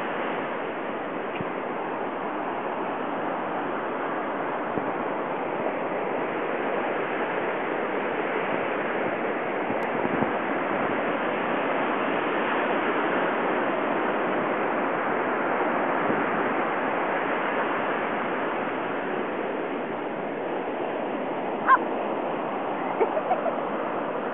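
Ocean surf washing on the beach in a steady rush. Near the end a dog gives one short bark, then a few quick yips.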